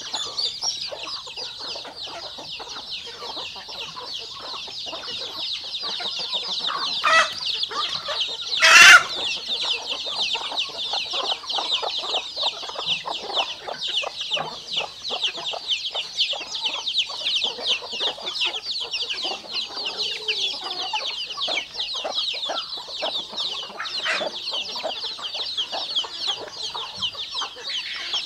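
A flock of domestic chicks peeping continuously in a dense chorus of rapid high calls, with adult hens clucking lower beneath them. One brief loud sound stands out about nine seconds in.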